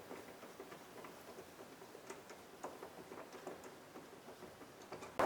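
Faint, irregular small clicks and ticks of plastic parts being handled as the door lock knob is worked off its rod.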